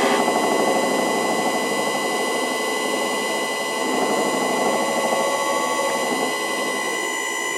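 Electric lathe motor driven by a VFD at full speed (60 Hz), running on its own without the lathe: a steady whine of several high tones over a dense rattle. The owner puts the rattle down to play on the motor axle from a worn, egg-shaped rear bearing seat. The sound eases slightly near the end.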